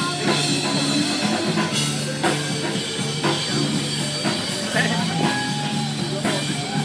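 Rock music with a drum kit keeping a steady beat.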